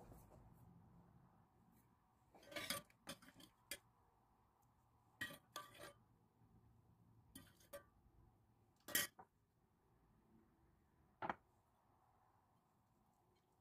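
A metal spoon clinking against a stainless steel pot while syrup is spooned out: about ten light, separate clinks, one sharper than the rest about two-thirds through.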